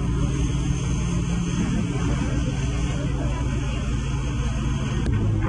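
Heavy armoured vehicle's engine running with a steady low drone.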